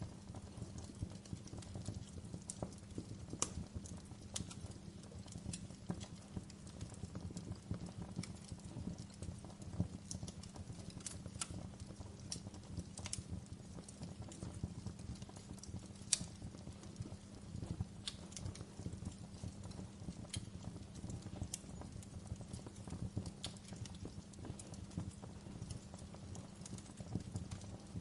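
Wood fire crackling in a fireplace: a steady low rumble of flames with irregular sharp pops and crackles scattered throughout.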